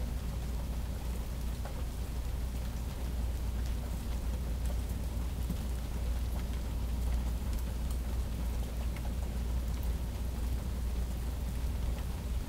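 Steady rain falling during a thunderstorm, with scattered drop ticks over a constant low rumble.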